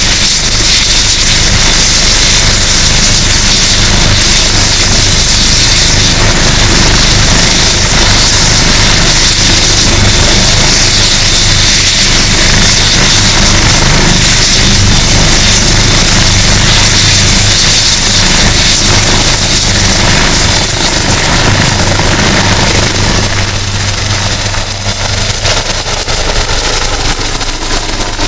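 AgustaWestland AW139 helicopter running at close range: a steady high turbine whine over loud rotor noise. The whine rises in pitch about two-thirds of the way through as power comes up, and the helicopter lifts off.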